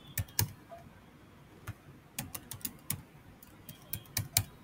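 Keystrokes on a computer keyboard. Irregular runs of sharp clicks with short pauses between them, as a password is typed.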